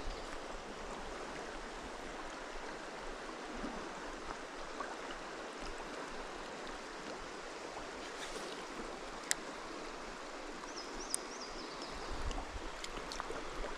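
Mountain stream water rushing steadily, with two short sharp clicks in the second half.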